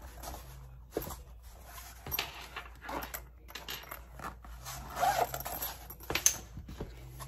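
Handling noise from a padded fabric laptop sleeve and a shrink-wrapped plastic laptop case being moved about on a wooden desk: rustling with a few light clicks and knocks.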